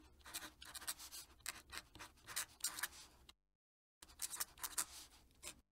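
Fountain pen nib scratching across paper in a run of short, quick strokes as a cursive signature is written. It drops out to silence for about half a second partway through.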